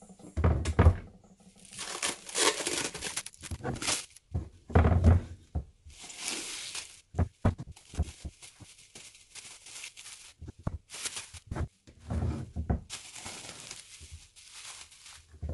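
Irregular rustling and crinkling, with a few dull thumps, of something being handled close to the microphone.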